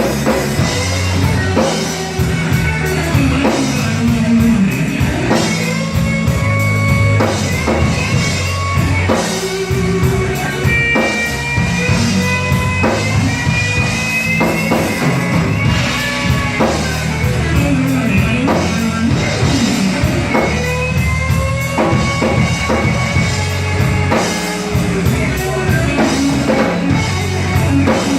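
Live blues-rock trio of electric guitar, bass guitar and drums playing a slow blues. The lead guitar plays a run of bent, gliding notes over the bass and drums.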